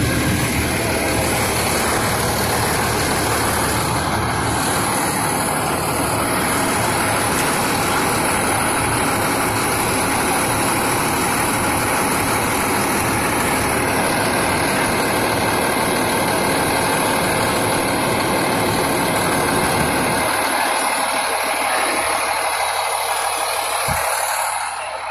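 Fire engine's diesel engine running steadily with a loud, constant drone; its deep low rumble drops away about twenty seconds in.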